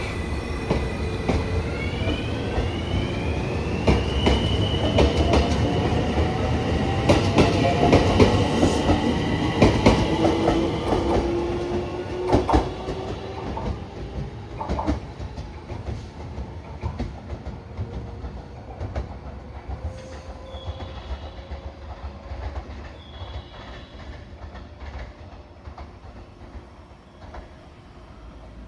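Electric train pulling away, its motor whine rising in pitch as it speeds up, with wheels clicking over rail joints. The sound fades steadily as the train moves off.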